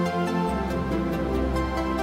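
Electronic ambient synthesizer music with sustained synth chords, a bass that drops to a deeper note about half a second in, and a light, evenly ticking high percussion.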